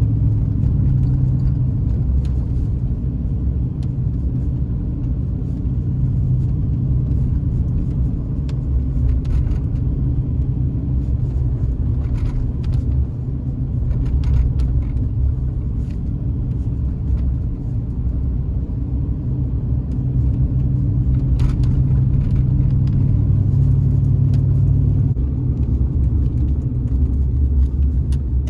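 Inside the cab of a 2008 Dodge Dakota V8 4x4 driving on a snow-covered road: a steady low rumble of engine and tyres, with a few faint clicks.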